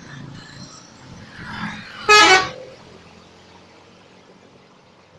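Tour bus's telolet musical air horn sounding one short, loud blast about two seconds in.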